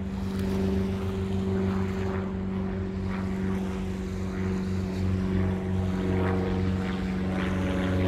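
A steady engine drone holding one even pitch throughout, with no rise or fall.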